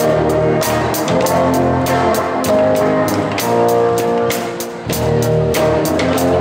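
Live rock band playing: a drum kit keeps a steady beat with regular cymbal strokes under sustained electric guitar chords and bass guitar.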